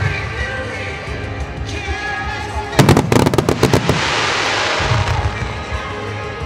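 Aerial fireworks bursting over background music: a rapid volley of sharp bangs about three seconds in, followed by a spreading hiss.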